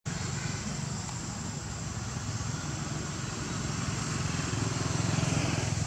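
An engine running steadily, a low even pulsing that grows a little louder toward the end.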